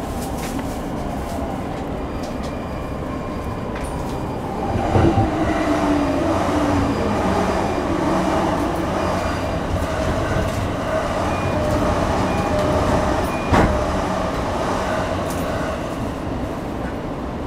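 Running sound of a Sotetsu 10000 series electric train from inside the passenger car: its Mitsubishi IGBT-VVVF inverter and traction motors hum in several steady tones, one lower tone sliding down, over wheel and rail noise. Two sharp knocks from the running gear stand out, about a third of the way in and about three-quarters of the way in.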